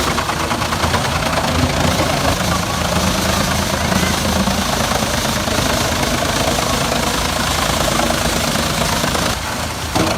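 Heavy machinery running steadily, a loud continuous engine drone with a low hum. It dips and changes character briefly near the end.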